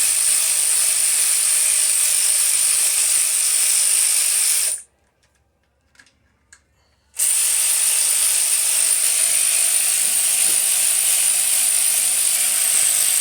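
Cordless power tool running steadily with a high whine for about five seconds, stopping for a moment with a couple of faint clicks, then running again for about seven seconds while it backs out the 8 mm rocker arm bolts on a 5.3 LM7 V8 cylinder head.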